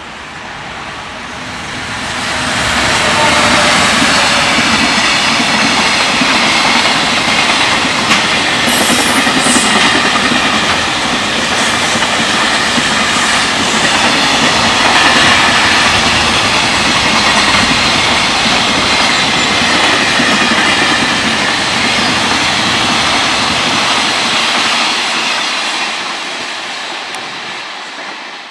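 Freight train passing at speed: a loud, steady rumble of wagon wheels on the rails that builds over the first few seconds, holds, then fades away near the end.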